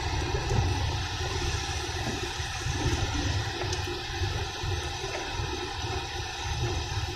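Steady in-car road noise while driving on a wet highway in the rain: a low rumble from engine and road, with hiss from the tyres and the rain.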